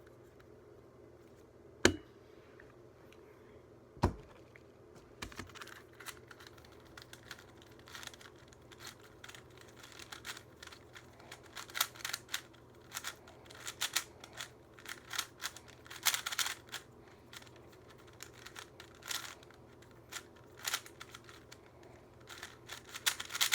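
Plastic Rubik's cube being turned quickly by hand, its layers clicking and clacking in an irregular run. Two sharp, louder clicks come in the first few seconds, and the turning runs on densely after about five seconds.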